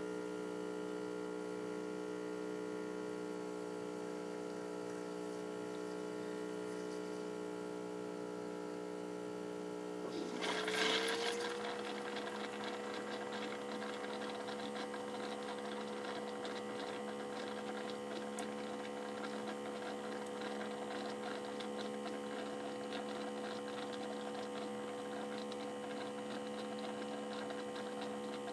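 Electric espresso machine humming steadily, a pitched mechanical hum with many overtones. About ten seconds in there is a short hissing burst, after which the hum settles slightly higher in pitch with a fine crackle over it.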